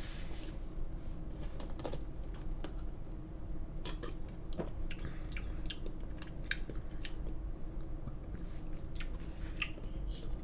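Scattered small mouth clicks and smacks of someone drinking and tasting peppermint mocha eggnog, over a low steady room hum.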